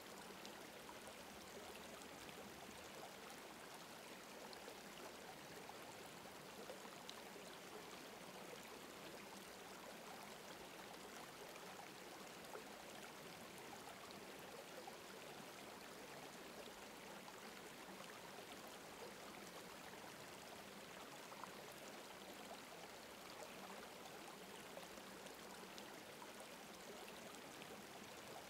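Faint, steady sound of a flowing stream.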